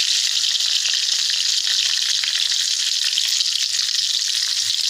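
Whole spices (bay leaves, cumin, fenugreek and mustard seeds) sizzling steadily in hot mustard oil in a kadai, with fine crackling running through the hiss.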